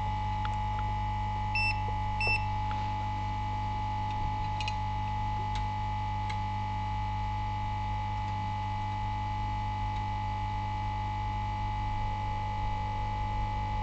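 Steady electrical hum from bench equipment, with two short high-pitched beeps a little under a second apart near the start, typical of a multimeter continuity tester touching connected points, and a few faint clicks a few seconds in.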